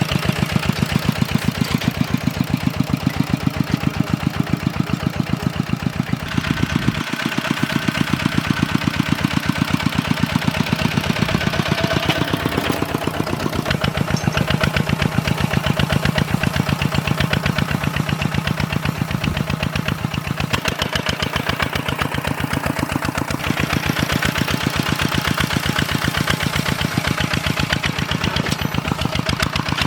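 Two-wheel walking tractor's single-cylinder diesel engine running steadily with an even, rhythmic putter while ploughing farmland.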